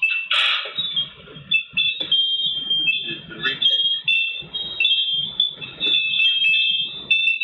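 A front-door camera recording playing through a phone's speaker: a high electronic tone that steps up and down between a few pitches without a break, over muffled lower sounds.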